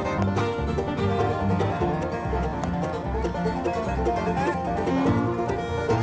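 Bluegrass music with a fast-picked banjo and guitar.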